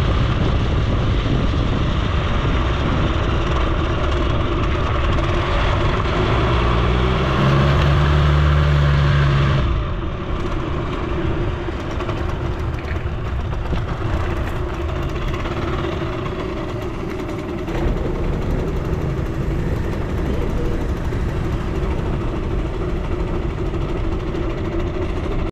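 Suzuki FZ50 49cc two-stroke moped engine running under way, with road noise. It revs up for a couple of seconds, drops off suddenly as the throttle closes about ten seconds in, then runs on quieter, slowing toward idle.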